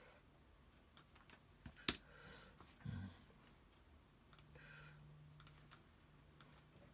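Scattered clicks of a computer mouse and keyboard, the sharpest about two seconds in, over a faint low hum that sets in past the middle.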